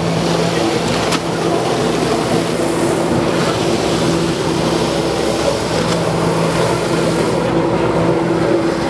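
Personal watercraft engine running hard to drive a flyboard's water jets, a steady hum under the rushing hiss of spray. The hum weakens for a few seconds, from about a second in, then returns.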